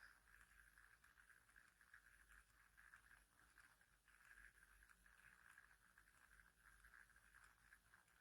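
Near silence: faint steady room tone with a light hiss and low hum.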